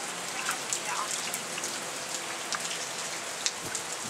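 Steady rain falling and pattering, with scattered individual drops ticking out above the hiss.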